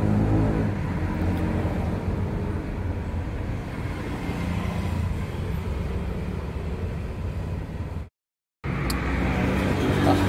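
Steady low rumble of motor vehicles running, broken by a half-second of total silence about eight seconds in.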